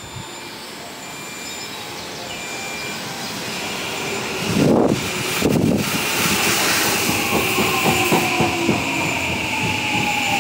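Odakyu 3000-series electric train pulling in alongside the platform and braking. The noise grows as it nears, with two louder rushes as the front passes about halfway through. After that the motor whine falls in pitch as the train slows, over a high steady hiss and wheels clicking over the rail joints.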